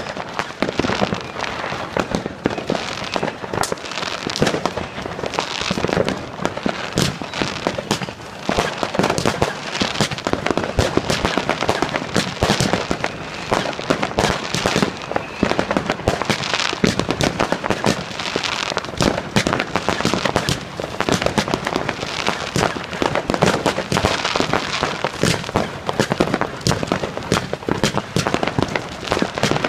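Consumer fireworks going off in a dense, unbroken run of bangs and crackling, many shots a second, from ground-fired firework batteries.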